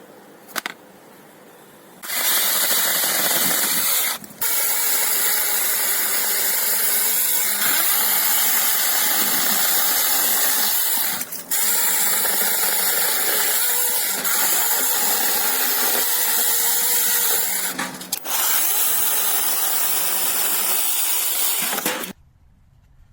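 Small brushless battery chainsaw running at full speed, a steady high whine with chain hiss, let off briefly three times and stopped sharply near the end.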